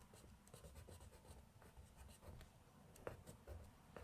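Pencil scratching faintly on journal paper in short, irregular strokes, with a light tap about three seconds in.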